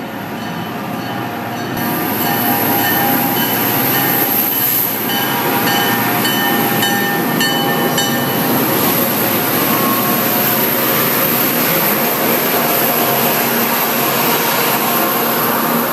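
MBTA commuter train moving on the station tracks: steady rumble of wheels on rail, louder from about two seconds in, with thin metallic squealing tones in the middle.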